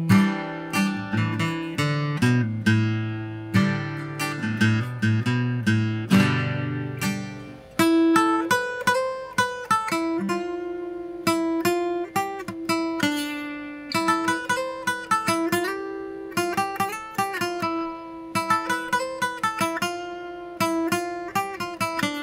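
Orangewood Mason Live acoustic-electric guitar being played: strummed chords for the first seven seconds or so, then from about eight seconds in a picked single-note line over held ringing notes.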